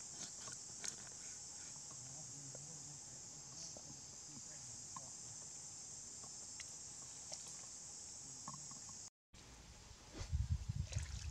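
Steady high-pitched insect chorus with a few faint ticks from knife work. After a brief break near the end, low sloshing of feet stepping into shallow river water.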